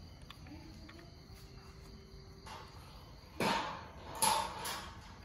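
Plastic CD lid and housing of an Aiwa portable stereo being handled and fitted together. A few light clicks come first, then two short, louder plastic scrapes about three and four seconds in.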